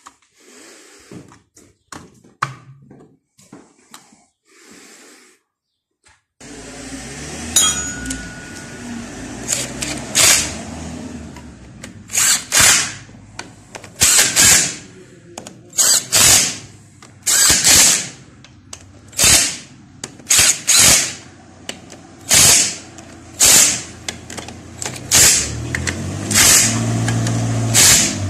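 Handheld power tool run in short repeated bursts, roughly every one and a half seconds, over a steady machine hum; a few clicks of metal parts being handled in the first seconds.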